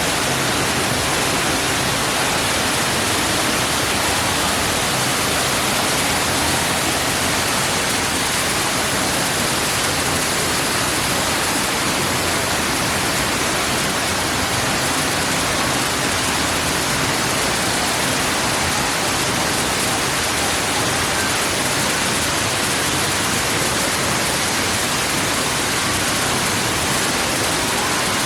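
Artificial indoor waterfall: water falling and rushing into its pool in a steady, unbroken rush.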